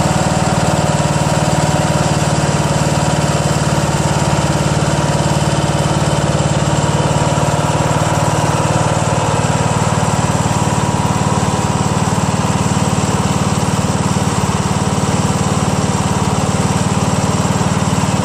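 Craftsman LT1000 lawn tractor's 15.5 hp Briggs & Stratton engine running at a steady speed with no change in revs. It runs smoothly, with its governor freshly reset.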